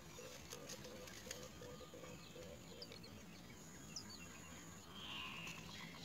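Faint rustling and clicking in a twig nest as an adult great myna feeds its nestlings, with a low note repeating a few times a second through the first half. A few short high chirps follow, then a burst of high, hoarse begging calls from the nestlings near the end.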